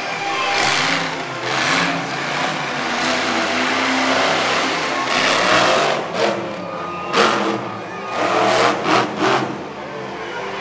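Monster truck engine revving hard, rising and falling in pitch, then a run of sharp, loud revs in quick succession about six seconds in as the truck climbs onto the crushed cars.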